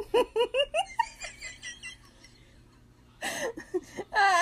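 High-pitched giggling laughter in quick rising bursts for about a second, then a quiet stretch, and another loud burst of laughing voice near the end.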